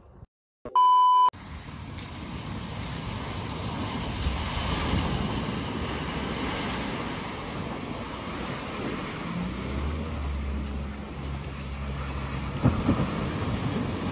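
A short, loud electronic beep about a second in, then an Audi hatchback ploughing through deep floodwater: a steady rush of splashing water, with a low engine hum under it in the second half.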